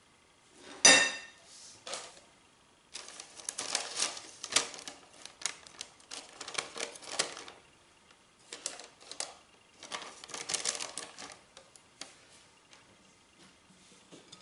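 A single sharp clink about a second in, then parchment paper crinkling and rustling as hands press it around the inside of a cake pan, in two long stretches with a short pause between them.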